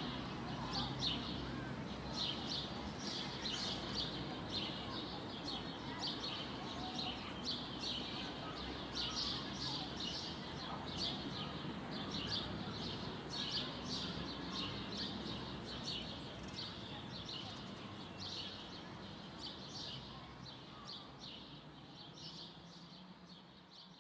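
Small birds chirping, short high calls repeating about two or three times a second over steady background noise; the whole fades out over the last few seconds.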